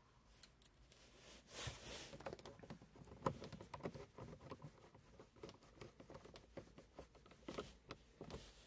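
Faint scratchy clicking of a hand screwdriver turning screws into a snowmobile's plastic console, with one sharper click about three seconds in.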